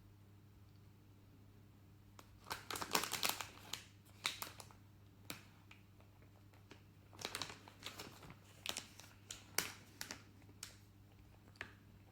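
Plastic snack packaging crinkling in two spells of crackly clicks, about two to four seconds in and again around seven to ten seconds in, with a few lone clicks between, over a steady low hum.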